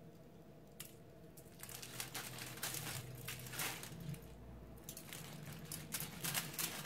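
Aluminium foil crinkling under a glazed ham as a knife saws slices from it, with faint scratchy rustles that pick up after about a second and a half.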